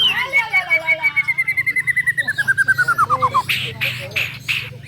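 White-rumped shamas (murai batu) singing in a song contest: a long, rapid trill that slides slowly down in pitch for about three and a half seconds, followed by several harsh, rasping notes near the end.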